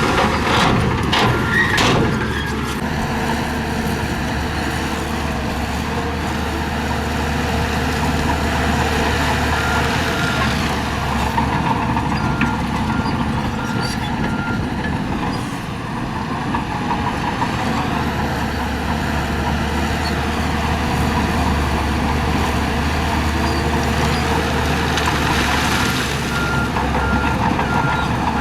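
Heavy construction machinery running steadily. A reversing alarm beeps in short bursts three times: at the start, about ten seconds in, and near the end.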